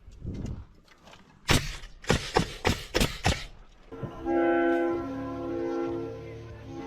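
A quick run of about six sharp knocks in under two seconds. Then, about four seconds in, loud held horn-like chords of music start and change in steps.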